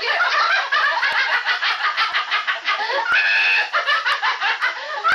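Children's high-pitched voices going rapidly and without a break, with a higher squeal held for about half a second about three seconds in.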